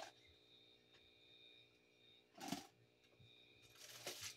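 Near-silent room with faint sounds of items being handled: a brief rustle about two and a half seconds in and more soft rustling near the end.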